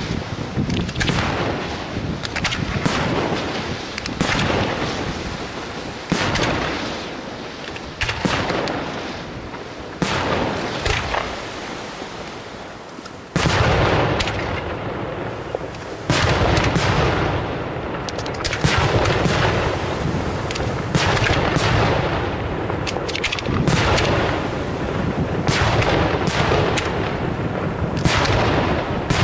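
Aerial firework shells bursting in quick succession, a boom every second or so. About halfway through the firing turns denser and louder, with booms overlapping almost without a break.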